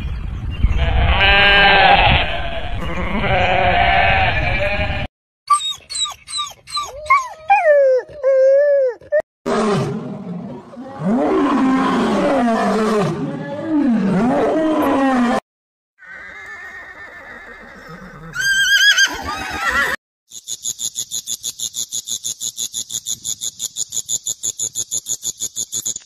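A run of separate animal sounds: sheep and lambs bleating, then gliding calls that rise and fall, then a lion's deep roaring and grunting, and finally a fast high-pitched chirping of about six pulses a second.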